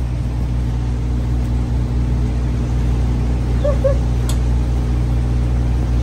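Diesel truck engine idling steadily, a constant low hum. A single sharp click comes a little after four seconds in.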